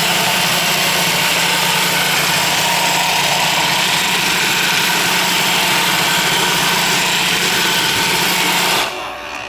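iRobot Roomba 440 robot vacuum switched on and running its motors: a steady loud hum with a dense whirring hiss. It stops abruptly near the end.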